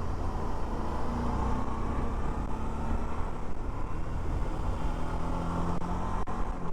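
Suzuki V-Strom 650 V-twin motorcycle engine running on the move, with a steady hum whose pitch shifts slightly, under wind rush at the helmet microphone.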